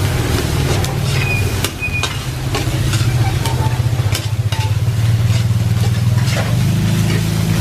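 Yangzhou fried rice being stir-fried in a large wok: the metal spatula and ladle scrape and knock against the pan many times as the rice sizzles, over a steady low hum.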